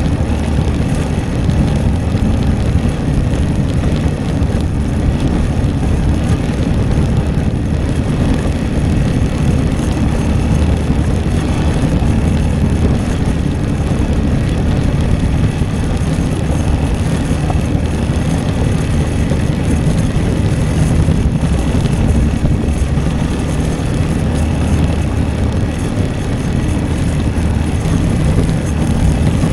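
Italika V200 motorcycle being ridden at a steady pace: the engine drones evenly under a rush of wind over the microphone.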